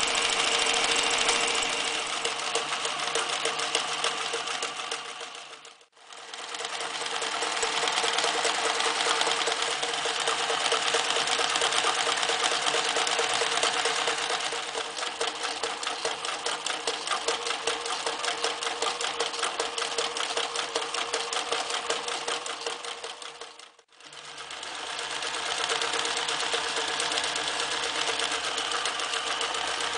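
Reads 1209 electric zigzag sewing machine running at speed, its needle stitching through fabric and layers of denim with a fast, even chatter over a steady motor hum. The sound fades away and starts up again twice.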